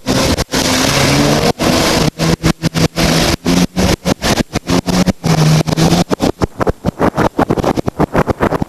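Jet ski engine running under way, a steady hum mixed with wind and water noise. The sound keeps breaking up in brief dropouts, more rapidly in the last few seconds, where the engine hum fades.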